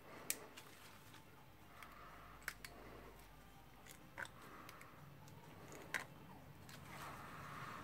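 A few faint, sharp metal clicks and scrapes as a hand tool works a tight retaining ring out of a Makita HR2470 rotary hammer, a little at a time.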